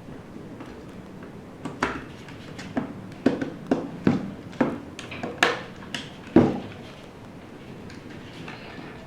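Computer parts being handled during a PC build: a string of about a dozen sharp clicks and knocks of hard plastic and metal, the loudest about six seconds in.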